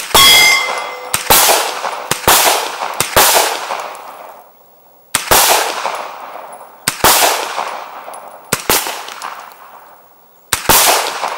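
JP Enterprises GMR-15 9mm pistol-caliber carbine firing eight single shots of 124-grain ammunition at a slow, uneven pace, each shot trailing off in echo. A short metallic ring, a steel target plate being hit, sounds just after the first shot.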